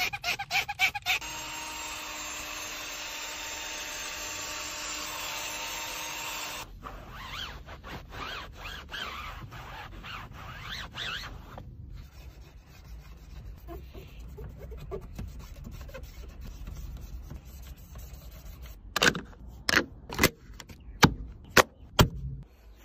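Rubbing and scrubbing on car interior plastic trim, with a steady hum carrying a few held tones for about five seconds near the start, and several sharp knocks about three seconds before the end.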